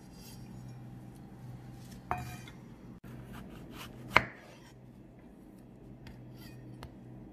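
Chef's knife slicing through strawberries and knocking on a wooden cutting board: a few separate knocks, the sharpest about four seconds in, with lighter clicks near the end.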